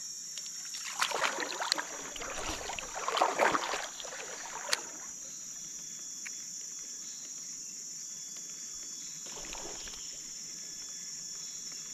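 Shallow stream water splashing and sloshing for a few seconds, in two spells, followed by a single sharp click and then quieter water, under a steady high-pitched drone of forest insects.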